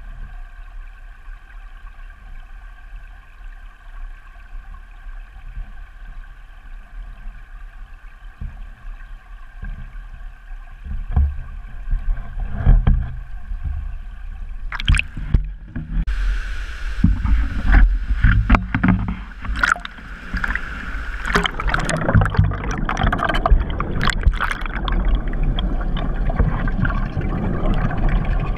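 Sound picked up by an underwater camera: a steady hum through the water at first, then, about halfway, repeated knocks and a rougher rushing water noise with sharp clicks as the housing moves and bumps.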